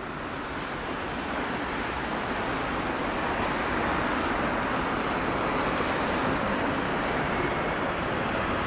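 Chevrolet Niva's 1.7 engine idling, heard through the open driver's door as a steady rushing noise that swells over the first few seconds and then holds.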